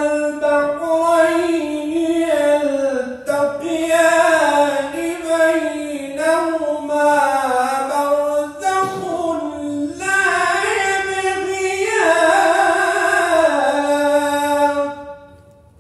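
A man reciting the Quran in a melodic, chanted style, with long drawn-out phrases whose held notes waver and bend in pitch. There are short pauses for breath between phrases, and the recitation stops near the end.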